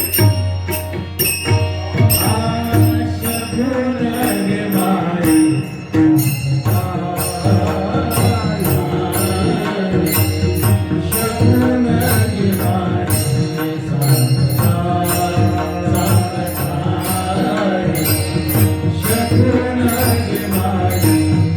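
Marathi kirtan music: devotional singing of an abhang over drum accompaniment, with sharp metallic strokes about twice a second keeping the beat.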